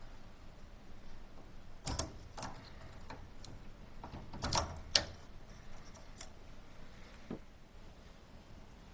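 A few irregular clicks and knocks of hard parts being handled, with a small cluster about halfway through; typical of hands working on an oven's clock panel and its wiring.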